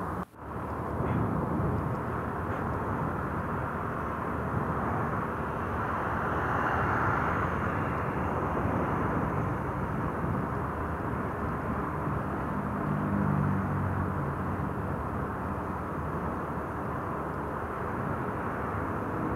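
Steady wind and road noise while riding a motor scooter, with engine noise running underneath. The sound cuts out for a moment just after the start, and an engine note swells briefly about thirteen seconds in.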